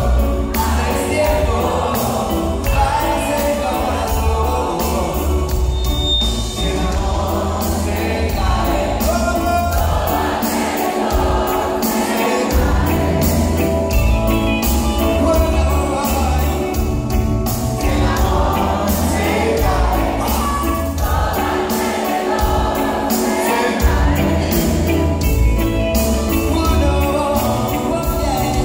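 Reggae band playing live, with electric guitar, bass, drums and keyboards under a male lead singer, a heavy bass line and a steady drum beat, heard from among the audience.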